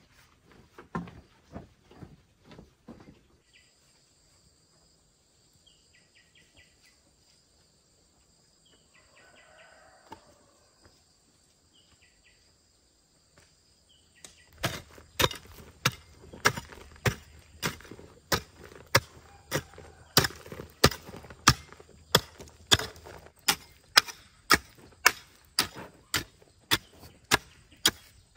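Chopping by hand: sharp, regular strikes, about two a second, start about halfway through and keep going. Before that there is a steady high-pitched whine and a few short bird chirps.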